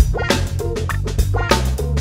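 Background rock music: a steady drum-kit beat over bass and guitar.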